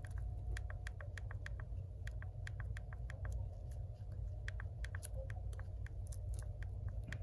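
iPad home button pressed again and again in a new screen's bezel, giving a string of small sharp clicks, some in quick runs of several a second, over a steady low hum; the button is being tested after its bracket was refitted, and it clicks well.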